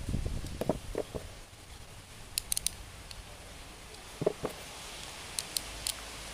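Small clicks and taps from handling the exposed gears and plates of an opened Sougayilang Thunder LS40R overhead fishing reel. There are a few clicks about a second in and again about four seconds in, with fainter sharp ticks between them.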